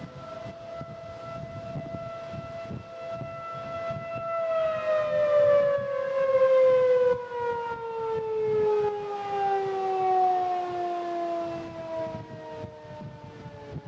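Outdoor civil defense siren sounding a steady two-note tone, then winding down about four seconds in, its pitch falling slowly: an air-raid attack warning.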